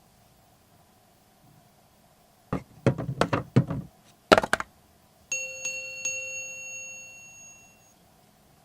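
A quick run of sharp knocks and rattles, then a bell-like chime struck three times in quick succession, its ring fading over about two and a half seconds.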